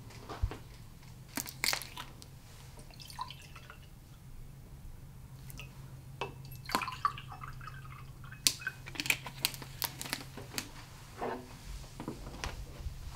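Water poured from a plastic bottle into two glass tumblers, with scattered light clicks and knocks of the bottle and glasses being handled, over a steady low hum.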